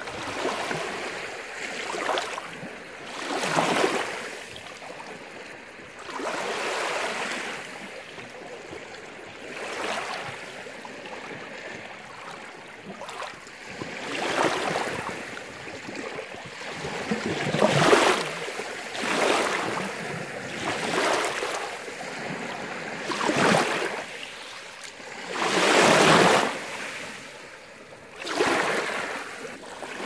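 Small sea waves lapping and breaking at the water's edge, washing over fine pebbles and shell grit. They come in uneven surges every two to four seconds, the loudest near the end.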